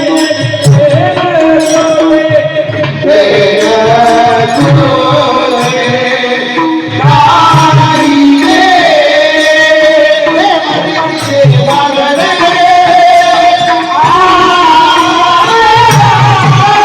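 Marathi devotional kirtan singing: a voice holds long, gliding, ornamented notes over steady drum strokes and instrumental accompaniment.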